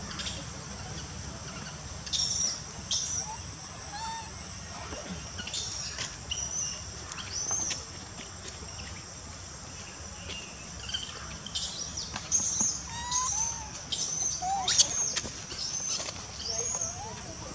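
Outdoor ambience of many short, high-pitched chirping calls, coming more often in the second half, over a steady high insect drone and a low rumble.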